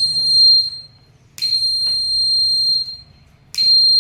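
Buzzer of a simple battery-and-switch fire alarm circuit sounding a high, steady beep in separate bursts. One beep ends about a second in, a longer one follows after a short gap, and another starts near the end.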